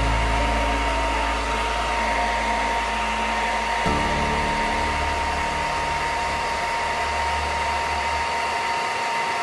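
Hair dryer blowing steadily: rushing air with a constant tone, its low rumble shifting about four seconds in. It cuts off suddenly at the end.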